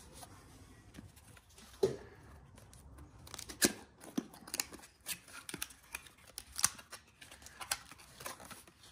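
Small cardboard box being opened by hand: an irregular run of sharp clicks, scrapes and crackles as the flaps are pried apart and the cardboard tears.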